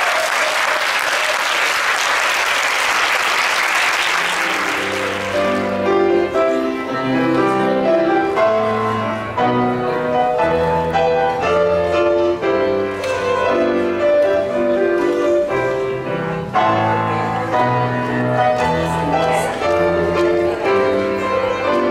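Guests applauding for about five seconds, fading out as piano music begins, a steady flow of notes that carries on.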